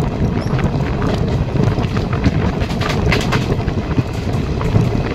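Express train running at speed, heard from the coach's open door: a steady rumble of wheels on the rails with scattered sharp clicks, and wind buffeting the microphone.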